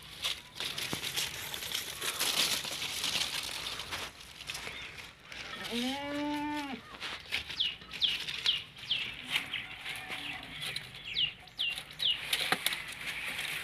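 Dry leaves and stalks rustling and crackling as they are handled and trodden on. About six seconds in there is one drawn-out animal call, and after it comes a run of short, high, falling chirps from small birds.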